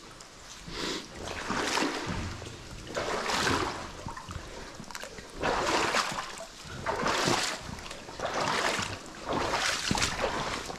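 Footsteps in waders sloshing and splashing through water and deep silt: about seven heavy steps, one every second or so, over a faint background of trickling water.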